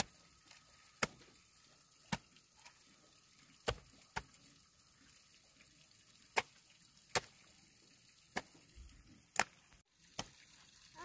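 About ten sharp chopping strikes at uneven intervals, roughly one a second, from a blade or tool hitting something solid.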